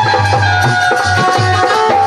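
Instrumental Bundeli folk music played loud, with a steady drumbeat under a sustained melody line.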